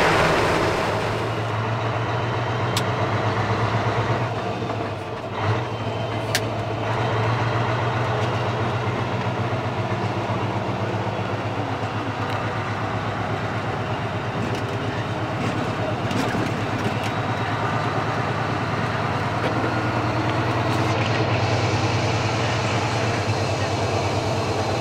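Scania R500's V8 diesel engine running steadily under way, heard from inside the truck's cab, with road and tyre noise over a low, even hum. The level dips briefly about five seconds in, then the hum carries on.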